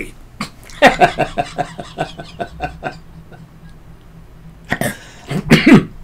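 A man laughing softly to himself: a run of short breathy chuckles that fades out, then another short laugh near the end.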